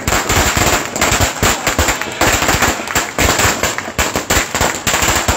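A string of firecrackers going off in a rapid, continuous series of sharp bangs, starting suddenly.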